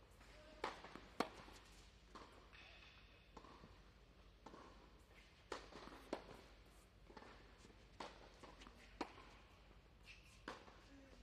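Tennis ball hit by rackets and bouncing on an indoor hard court: sharp, isolated knocks every second or so, a few of them close together, over a faint hall background.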